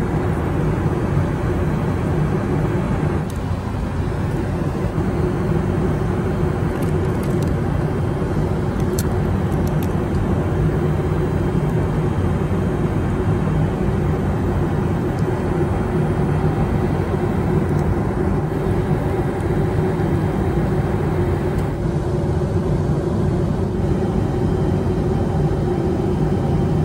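Steady cabin noise of a Boeing 737 MAX 8-200 in flight: even rushing air with a constant low hum from its engines.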